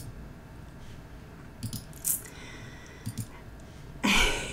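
A few small clicks and a light rattle, then a louder brief noise about four seconds in.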